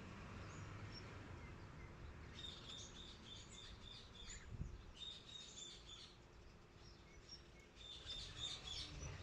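Small birds chirping in three quick, high-pitched bouts, over a faint low rumble.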